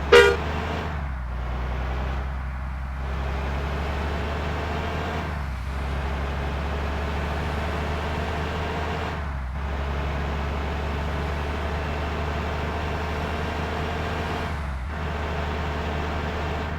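An intercity bus's diesel engine running steadily with a low hum, easing off briefly several times. A short, loud pitched blast sounds at the very start.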